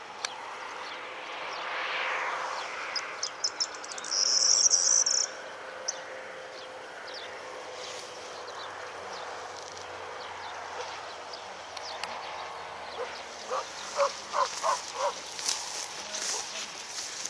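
Open-field ambience of insects chirping, with a loud high cricket-like trill about four seconds in and a quick run of short, lower calls near the end.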